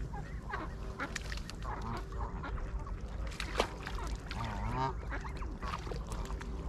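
A flock of Canada geese and ducks calling, a mix of honks and quacks overlapping throughout, with a sharp click-like sound about three and a half seconds in.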